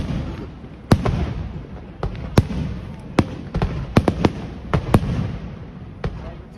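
Fireworks bursting in a rapid, irregular string of sharp bangs, a dozen or so, each trailing off in echo.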